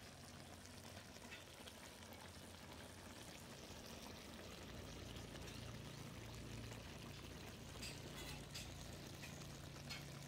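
Jackfruit in coconut milk simmering in a wok: a faint, steady bubbling hiss, with a few light clicks near the end.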